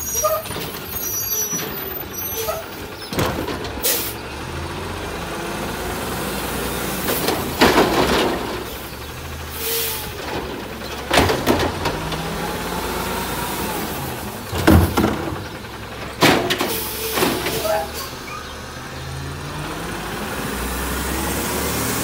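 Refurbished 2009 Autocar dual-axle garbage truck with an automated side-loading arm at work: engine running with air-brake hiss, and several loud bangs as the arm lifts a trash cart, tips it into the hopper and sets it back down. Near the end the engine note rises as the truck pulls away.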